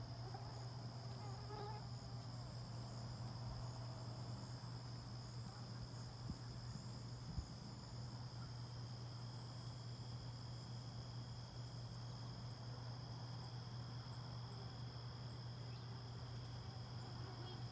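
Crickets trilling steadily in a continuous high chorus over a steady low hum, with one sharp click about seven seconds in.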